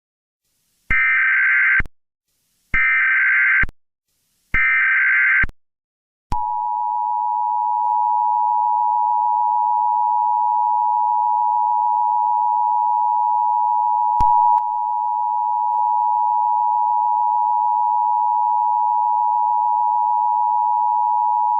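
Emergency Alert System tornado warning: three short buzzy SAME header data bursts, then the steady two-tone attention signal starting about six seconds in and holding to the end.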